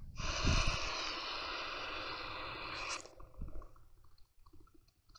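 SB11 spirit box sweeping radio stations: a burst of hissing static that cuts off suddenly about three seconds in, followed by a few faint clicks.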